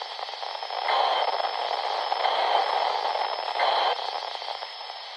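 Radio receiver hissing with static on an open channel between transmissions, a steady band-limited rush with faint crackle and thin whining tones. It cuts off abruptly right at the end as the squelch closes.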